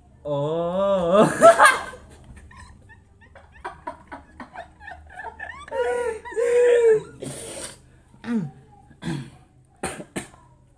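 Several young men laughing, with snickers and short bursts of laughter breaking through as they try to hold it in, after a short hummed, chant-like phrase at the start.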